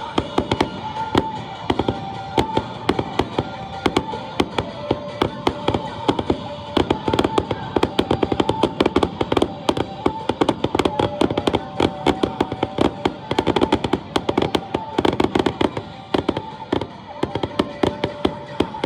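Rapid crackling pops of fireworks, several a second without a break, over music with long held notes that step from pitch to pitch.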